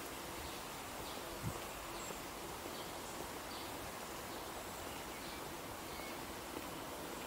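Outdoor ambience: a steady hiss with faint, scattered short bird chirps, and one soft thump about a second and a half in.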